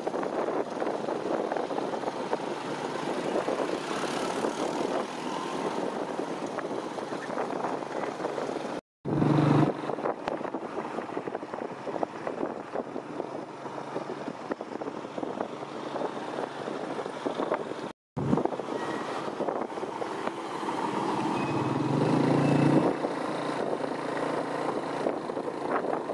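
Motorbike and tuk-tuk engines running with road rumble, heard from a moving vehicle. An engine swells louder briefly about nine seconds in and again about two-thirds of the way through.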